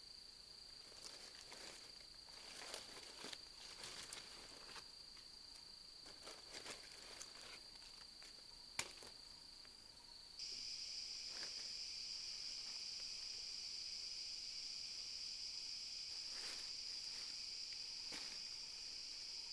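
Steady high-pitched insect drone, joined about halfway through by a louder, fuller insect chorus that then holds steady. In the first half, scattered rustles and snaps of sticks and leaf litter being handled, with one sharp click just before the chorus comes in.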